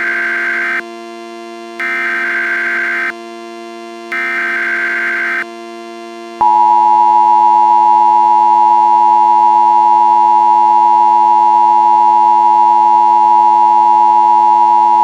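Emergency Alert System tones: three short bursts of SAME header data, about two seconds apart, then a loud, steady attention tone that starts a little under halfway through and holds. Underneath runs a steady synthesizer drone.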